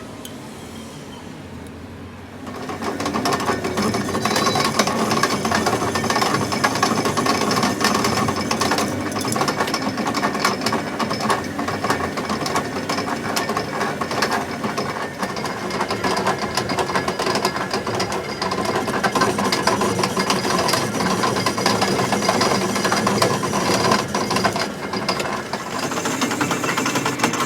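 Steady, rapid mechanical clatter of metalworking on a steel spindle, starting about two and a half seconds in after a quieter stretch.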